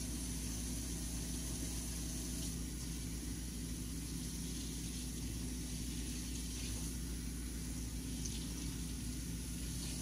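Water running steadily from a sink faucet while hands are washed under it, over a steady low hum.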